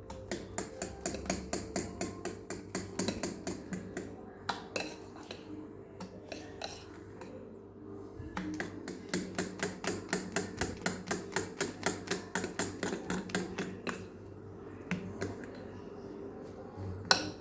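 A utensil knocking against a mixing bowl in a quick, even rhythm, about five strokes a second, while cake batter is stirred. Two runs of strokes with a pause of a few seconds between them.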